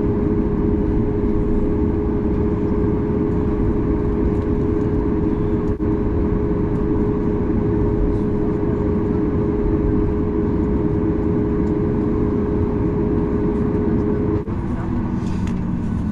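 Cabin noise of a Boeing 737 MAX 8-200 taxiing to its stand, heard inside the cabin: the steady rumble of its CFM LEAP-1B engines at idle, with a steady hum over it. The hum cuts off near the end.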